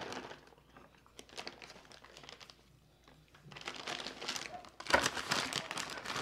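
Plastic bag of shredded cheese crinkling as it is handled and shaken out into a measuring cup: faint in the middle, louder in the last two seconds, with a knock about five seconds in.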